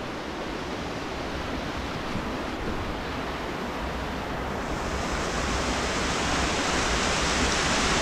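Steady rushing of a small mountain creek cascade, with an uneven low wind rumble on the microphone. About five seconds in, the hiss turns brighter and a little louder.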